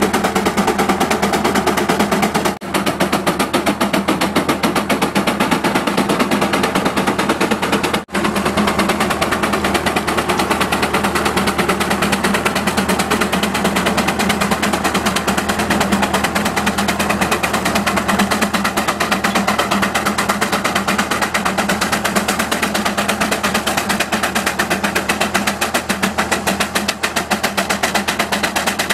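Steam traction engine working under load as it pulls a plow, its exhaust beating in a rapid, even rhythm.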